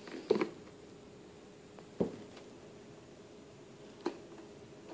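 Three short knocks of hard plastic, about two seconds apart, as a toddler handles a plastic ride-on pirate ship toy, over a faint steady hum.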